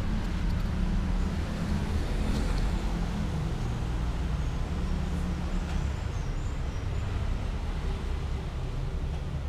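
A steady low rumble with no rhythm, stronger in the first few seconds.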